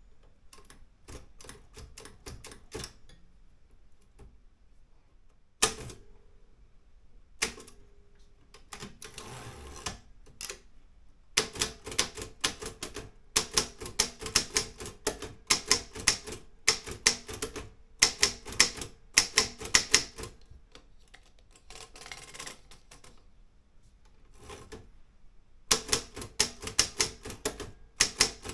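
Olympia M8 manual typewriter being typed on: a few scattered keystrokes and two louder single strikes at first, then quick, steady runs of type-bar strikes with a short break before the typing picks up again near the end.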